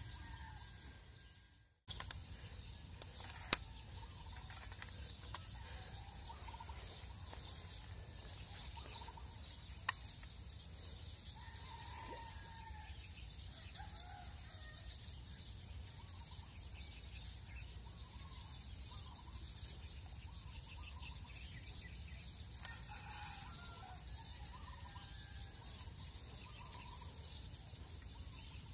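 Faint outdoor ambience of chickens clucking and birds calling now and then, over a steady high hiss. A few sharp clicks stand out, the loudest about three and a half seconds in.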